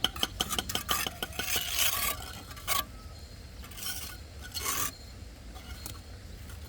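A metal hand tool on a hard surface: a fast run of ringing taps, then a few rasping scrape strokes with a single knock between them.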